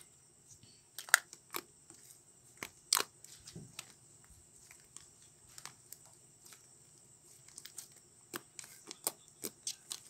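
Sticky homemade slime being kneaded and stretched by hand to mix in colouring, giving irregular small clicks and pops as it pulls apart and presses together.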